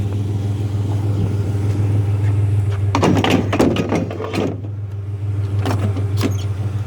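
Pickup truck engine idling with a steady hum. About three seconds in there is a burst of clattering and rattling, then a couple of sharp knocks: scrap such as a folding lawn chair being tossed into the truck bed.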